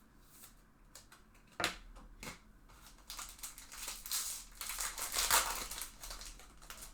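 Two sharp clicks, then about three seconds of crinkling and tearing as a foil trading-card pack wrapper is opened and handled.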